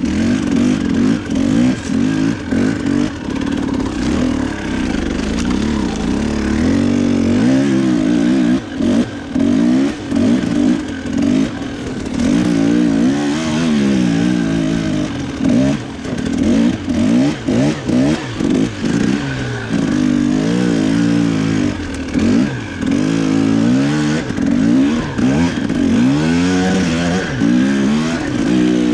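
Husqvarna TE300 two-stroke dirt bike engine being ridden hard, revving up and falling back over and over as the throttle is opened and chopped.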